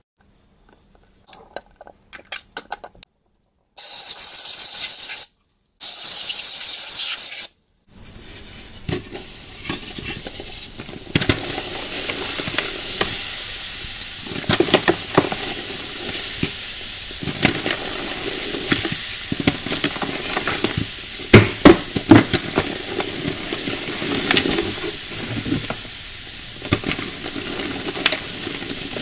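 A few faint ticks, then two short bursts of hiss. From about eight seconds in comes a continuous foamy fizzing as hands crush a chalky powder block into it, with scattered crunches and squelches, the loudest a little past twenty seconds.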